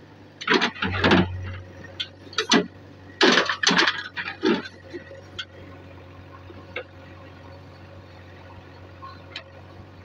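JCB 3DX backhoe loader's diesel engine running steadily, with a run of loud, irregular scrapes and knocks in the first half as the backhoe digs in the earth and stone; after that only the engine is heard, with a few faint clicks.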